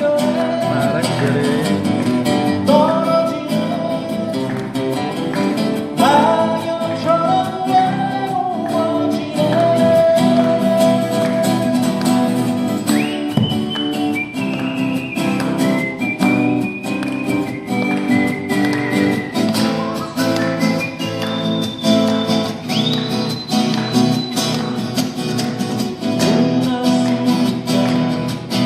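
Live band music: acoustic guitars strumming steadily, with a high melody line over them from about halfway through.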